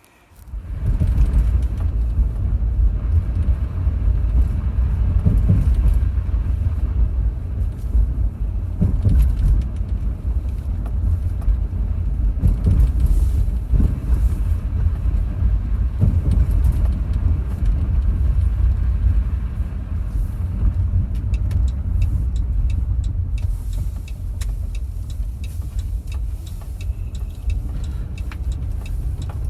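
Car driving, a steady low rumble of road and engine noise heard from inside the cabin, with occasional light knocks, starting abruptly about half a second in.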